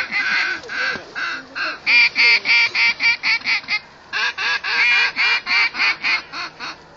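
Hunter's duck call blown in two quick runs of quacks, each run speeding up as the notes get shorter, calling in an approaching flock.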